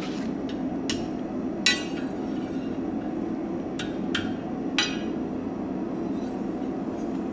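Hammer striking a forged iron scroll laid over the anvil: about five irregularly spaced blows with a bright metallic clink, the loudest a couple of seconds in.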